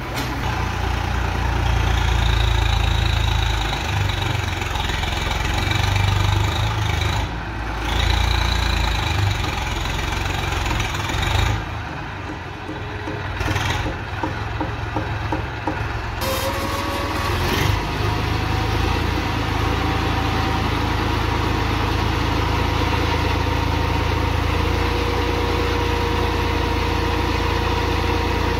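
Sonalika DI 740 tractor's diesel engine running while it moves a trolley loaded with soil, revving up and easing off several times. About two-thirds of the way in it settles to a steady idle.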